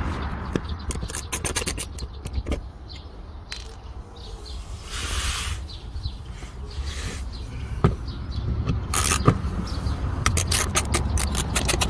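Scraping with a string of sharp clicks and knocks from hand work on tools and parts, with a longer hissing scrape about five seconds in.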